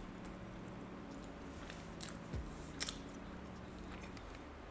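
A person chewing crispy fried food with the mouth, with a few sharp crunches spaced out over a steady low hum.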